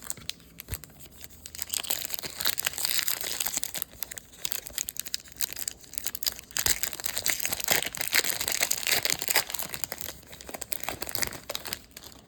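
Plastic trading-card pack wrapper being torn open and crinkled in the hands, a dense crackling rustle that runs for about ten seconds after a quiet first second or so.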